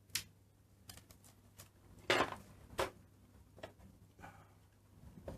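A few scattered light clicks and knocks of small parts being handled inside an opened BBC Master 128 computer, with a short, louder scrape about two seconds in.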